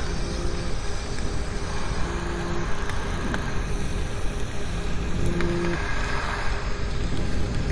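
Underwater hydrophone recording: a steady low rumbling noise, with a short low hum coming back three times and a few faint clicks.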